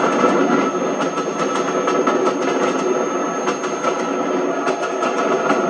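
A train of Pullman coaches running past at speed: a steady loud rumble with many small irregular clicks from the wheels.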